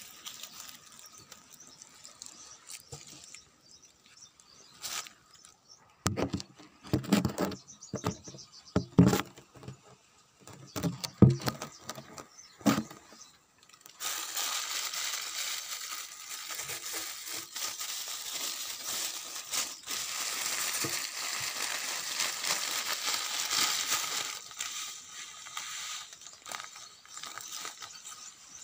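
Several loud knocks and clatters of things being handled, then a steady hiss that lasts about ten seconds and fades away near the end.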